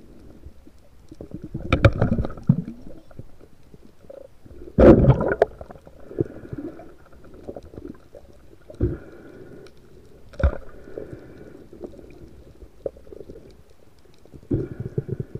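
Muffled underwater rumbling picked up through a diving camera's housing, broken by several louder rushing and knocking bursts at irregular intervals, the loudest about five seconds in.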